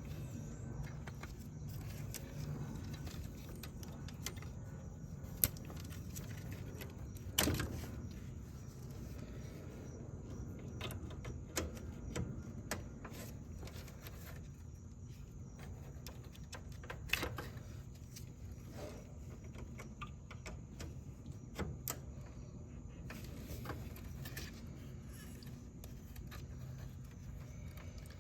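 Scattered clicks, taps and knocks of hands and tools working on an HVAC unit, a few sharper knocks among them, over a steady low hum.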